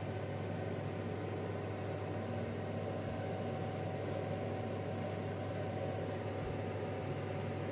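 A steady machine hum with a thin constant tone over it, unchanging throughout. Its source cannot be pinned down.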